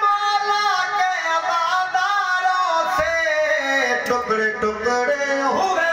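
A man singing a devotional Urdu poem in a long, drawn-out melodic line, holding notes that slide slowly up and down.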